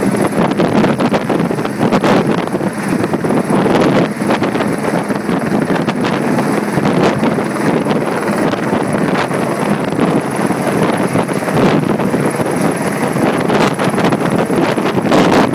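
Helicopter hovering overhead with a long line hanging below it, its rotor running loud and steady with a fast chop. Wind buffets the microphone.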